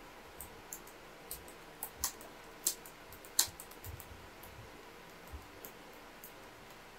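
Typing on a computer keyboard: irregular key clicks, with a few sharper, louder taps around the middle.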